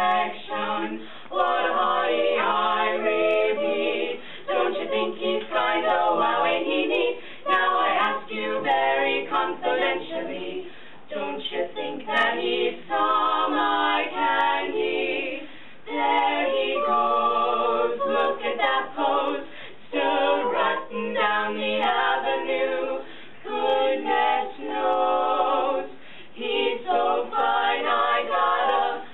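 Four female voices singing a cappella in close barbershop-quartet harmony, in sung phrases separated by brief breaths.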